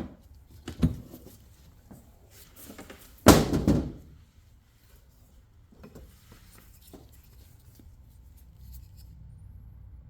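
Knocks and clatter of an ammunition box being handled and opened, with the loudest scraping clunk a little over three seconds in and a few light clicks later.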